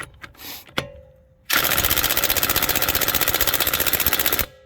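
Ryobi 18V ONE+ HP brushless impact wrench on its lowest speed setting, rapid-fire hammering on a pickup truck lug nut for about three seconds, then stopping abruptly; on this setting it doesn't work that good on the nut. A few light clicks come before it.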